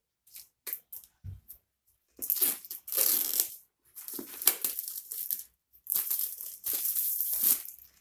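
A few light clicks as a knife cuts the seal tape on a cardboard tablet box, then three long bursts of cardboard scraping and rustle as the box is worked open and the white inner box slides out of its printed outer sleeve.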